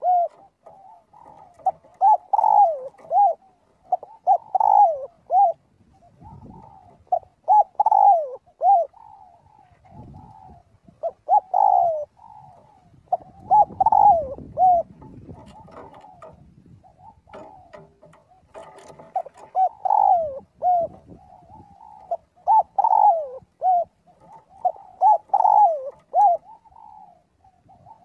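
Spotted doves cooing: short multi-note phrases repeated every two to three seconds, with a faint low rumble underneath now and then.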